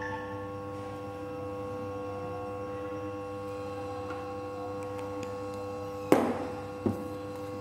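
A steady hum of several held tones throughout. About six seconds in there is a sharp knock as something is handled or set down on the table, and a smaller knock just under a second later.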